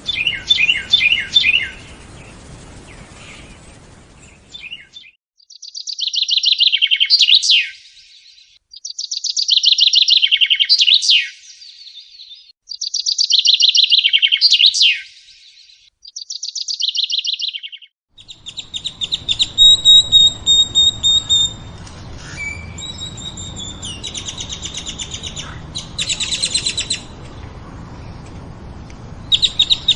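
Songbirds singing in several spliced recordings: a few quick falling chirps, then four repeated song phrases of rapid high trills each ending in a downward sweep, then a different bird's high whistled notes and trills over background hiss.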